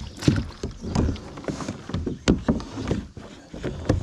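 Irregular knocks, bumps and rustling from handling a fly rod, reel and line inside a plastic sit-on-top kayak, several sharp knocks a second against the hull.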